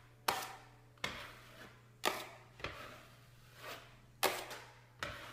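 Stainless steel taping knife scraping across wet quick-setting joint compound on a drywall patch in several short smoothing strokes, each starting sharply and fading away.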